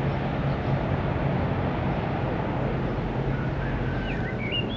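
A motor vehicle's engine running steadily with a low hum, over a steady rush of noise; a bird chirps several times near the end.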